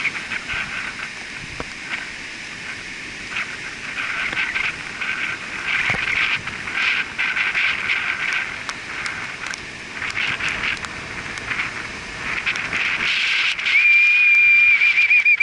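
Surf hissing on a sandy beach, with many short, high chirping calls over it. About fourteen seconds in, a clear high whistled note is held for a second or two and then wavers into a trill.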